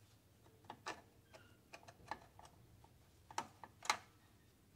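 Sharp metal clicks and clinks as the number four connecting rod cap of a Ford 8N tractor engine is worked loose and pulled off the crankshaft journal. The clicks come irregularly, the loudest near the end.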